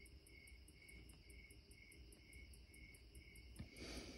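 Faint crickets chirping in two steady, even rhythms, one lower at about three chirps a second and one higher and faster. There is a short soft rustle near the end.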